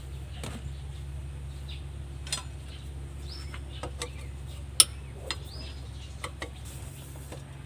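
Scattered sharp metallic clicks and clinks of hand tools and parts during motorcycle cylinder-head disassembly, with the loudest click about five seconds in, over a steady low hum. Birds chirp briefly a few times.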